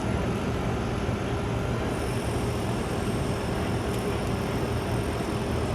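Steady city traffic noise, a continuous low rumble with a faint steady hum.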